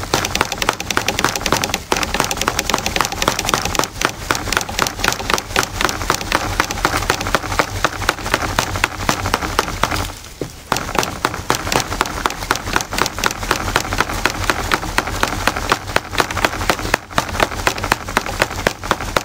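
A hand-knapped stone hand axe chopping into a green maple sapling, striking fast and repeatedly with a short pause about halfway through.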